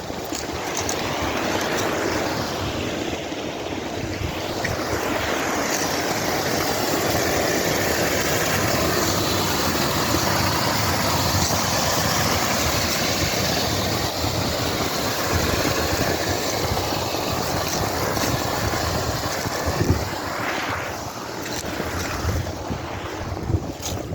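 Wind rushing over the microphone and road rumble during a ride on a personal electric vehicle. It swells louder in the middle, eases off near the end, and has a single sharp knock about twenty seconds in.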